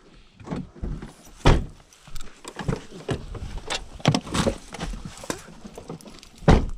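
Irregular knocks and clunks of things being handled in and around a car, such as doors and gear, the loudest about a second and a half in and again near the end.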